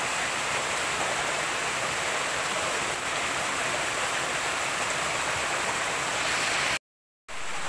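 Small forest waterfall: a stream cascading over rocks with a steady rush of white water. Near the end the sound drops out completely for about half a second, then the rush resumes.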